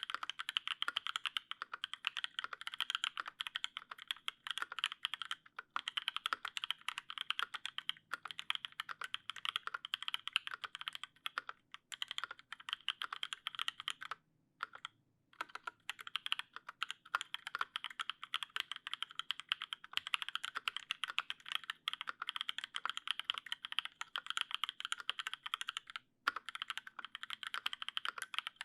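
Continuous fast typing on a custom LZ CLSm mechanical keyboard with lubed Paco switches in an aluminium plate and GMK keycaps, a dense run of key clacks with brief pauses about 15 and 26 seconds in.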